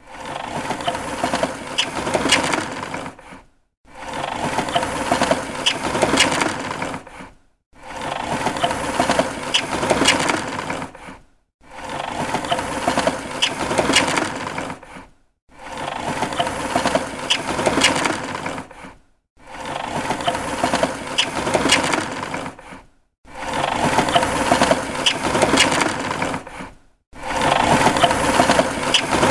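Plastic window blind slats clattering as a hand is run up them: a dense rattling sweep of about three seconds, repeated over and over with short pauses between, roughly every four seconds.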